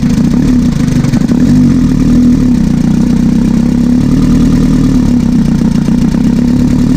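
Nissan Frontier D22 diesel engine idling, its speed wavering a little, while the fuel lines are being bled after the fuel return pipe was replaced.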